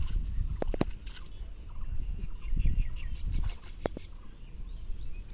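Water sloshing and splashing as hands work inside a bamboo polo fish trap in shallow river water, with a few sharp clicks. A bird calls in quick runs of short high notes about two seconds in and again near the end.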